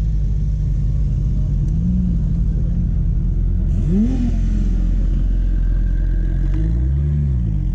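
Porsche 911 flat-six engines running low as the cars pull away slowly, with a quick rev blip about four seconds in and a brief rise and fall in engine pitch near the end.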